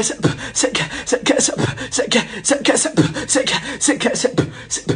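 Fast, busy percussive music: sharp strokes several times a second over a bending pitched line.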